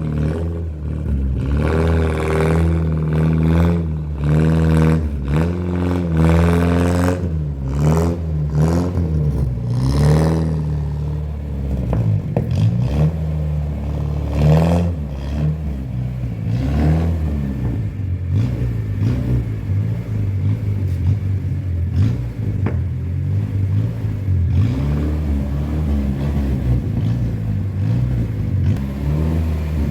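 Ford Corcel's four-cylinder engine running and revving, its pitch rising and falling repeatedly in the first ten seconds or so, then running more steadily.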